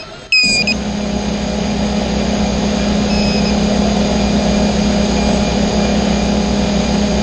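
FPV racing quadcopter motors idling steadily on the start pad, a constant hum. A short high beep sounds as the hum cuts in, and a fainter beep comes about three seconds in.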